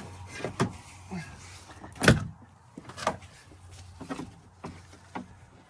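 Irregular knocks and clicks of a van's seatbelt and buckle being handled and pulled across the body, the loudest a single thump about two seconds in.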